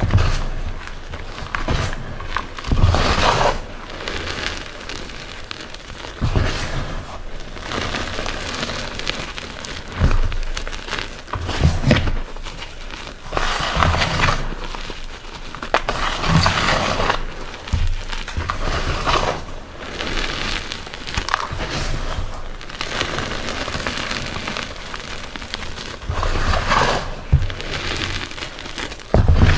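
Hands squeezing and crushing soft reformed Chalkness Monster gym chalk powder in a bowl: irregular soft crunches and powdery squishes every second or two, each with a dull thump as the fists close. A steady rain track runs underneath.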